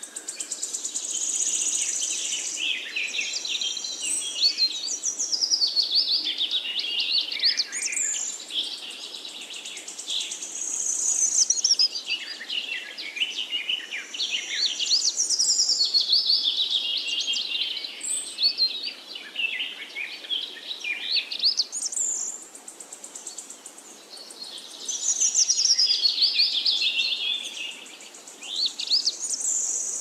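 European robin singing: a series of high, thin, warbling phrases of quick rising and falling notes, each a few seconds long, with short pauses between them.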